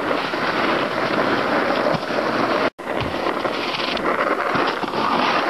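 Steady rushing wind noise on the microphone, with a brief break about halfway through.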